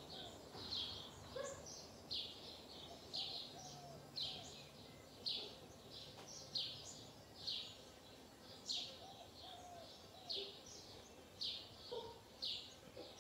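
Wobbly, rusted ceiling fan turning, with a short high chirping squeak about once a second, in time with its rotation, from a fan that has been bouncing in its ball-joint mount.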